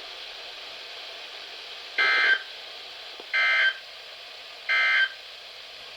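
NOAA Weather Radio end-of-message SAME data tones: three short, raspy digital bursts about a second and a half apart. They mark the end of the alert message.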